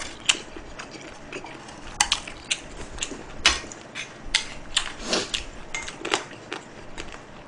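Chopsticks clicking and tapping irregularly against a small metal bowl and a grill plate while food is picked up, mixed with close-up chewing.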